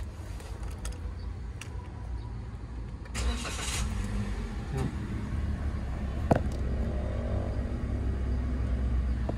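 The engine of a 2017 Daihatsu Xenia R is started, a brief burst of starter cranking about three seconds in, and then idles with a steady low rumble. A single sharp click comes a few seconds after the start.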